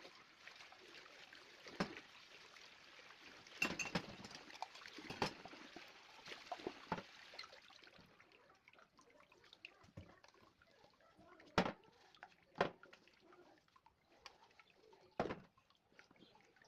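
Tap water running for the first eight seconds or so, with dishes clinking and clattering throughout. After the water stops, a few sharp knocks follow as dishes are set down.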